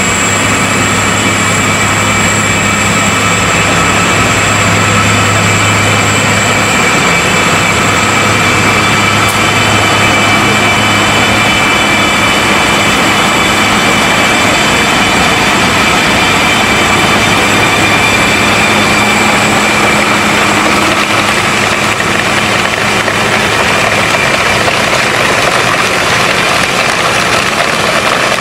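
Heavy machine engine running steadily at speed: a loud, even drone with a constant high-pitched whine and no distinct impacts.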